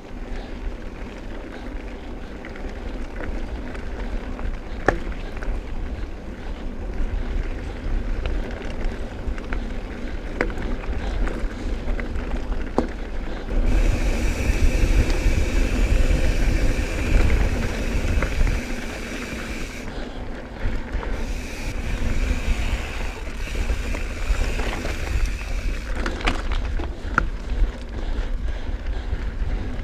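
Mountain bike rolling along a dirt trail: low tyre rumble and frame rattle, with wind buffeting the microphone and a few sharp clicks. It gets louder and brighter about halfway through, easing off briefly before picking up again.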